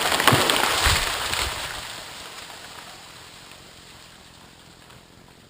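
A felled tree crashing down: a loud rush of branches swishing and breaking, with a few heavy thuds in the first second and a half as the trunk and crown hit the ground, then rustling that dies away.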